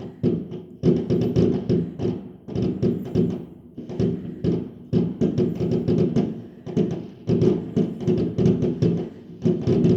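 Music with steady held tones and a busy, uneven percussive beat.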